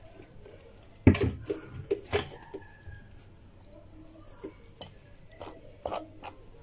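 Silicone spatula working tomato purée through a metal mesh sieve, with a sharp knock about a second in and scattered lighter clicks and taps against the sieve and bowl.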